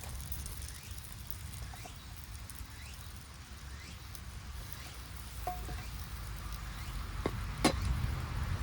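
Quiet outdoor ambience with a low steady rumble, broken by a few light clicks and knocks in the second half.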